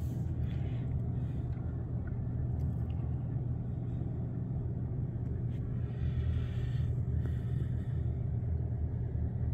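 Steady low rumble of outdoor background noise, even throughout, with no distinct events standing out.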